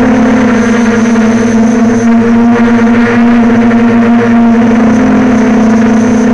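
Quadcopter's electric motors and propellers humming loudly and steadily, heard up close through the onboard camera's microphone, the pitch shifting only slightly as the craft manoeuvres.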